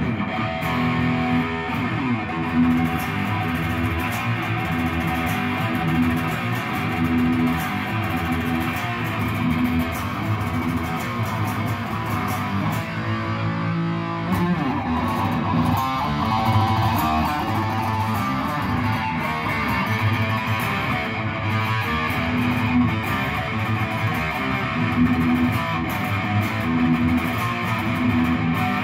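Santa Cruz electric guitar played through a Fender combo amp, with riffs and single-note lines running without a break and a fierce tone. The owner says its sound is back to the original after being worked on.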